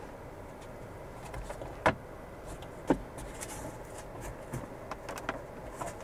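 Sharp clicks of a plastic trim cover behind the rear-view mirror being pried at by hand, the two loudest about two and three seconds in, with smaller ticks near the end, over a steady low background hum.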